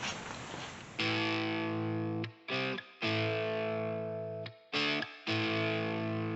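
Music with distorted electric guitar. It starts about a second in as held chords that break off and come back in short stops several times. A brief rustling noise comes before it.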